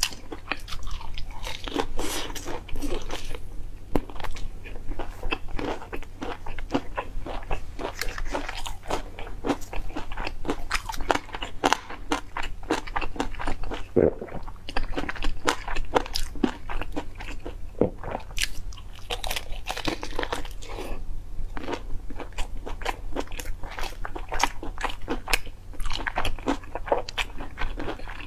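Close-miked biting and chewing of crispy fried chicken coated in chili and cheese sauce: a dense, continuous run of crunches.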